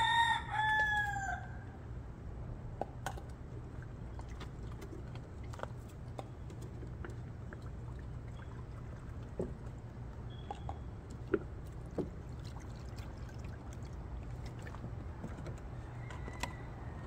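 A rooster crowing, the call ending about a second and a half in. After it, a steady low hum with scattered light clicks and taps.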